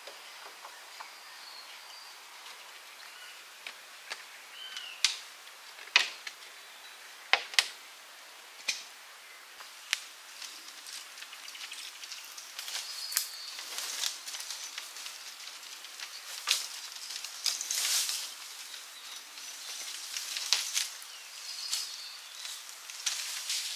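A series of sharp snaps and clicks, then repeated bursts of crackling rustle, with a few faint high chirps of a bird.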